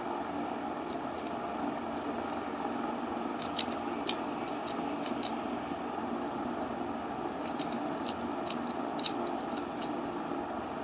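Rubik's cube being turned by hand: two runs of quick plastic clicks and scrapes as the layers are twisted, over a steady background hiss.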